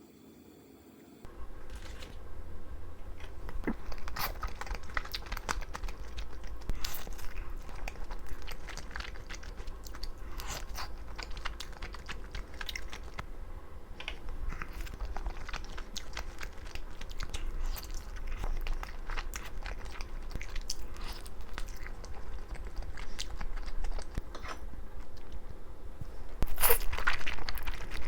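Close-up chewing and biting of pizza, with irregular crunching clicks over a steady low hum, louder bites near the end.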